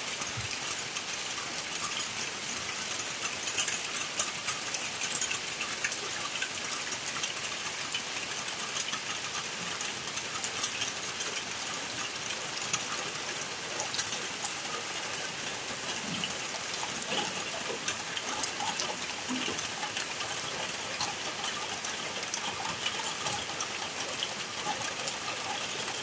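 Steady rain falling, a dense patter of drops hitting the puddled ground and the roofs.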